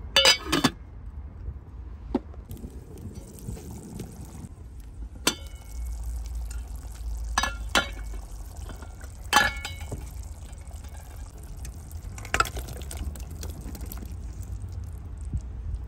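An aluminium pot lid is lifted off with a metallic clatter right at the start. A pot of curry then simmers on an open fire, with several sharp clinks of a metal spoon against the pot over a steady low rumble.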